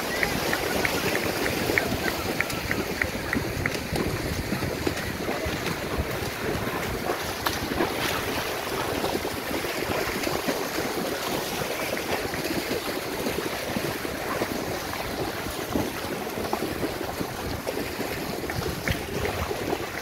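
Many people wading and running through shallow seawater, a steady irregular splashing of legs through the water, with wind on the microphone.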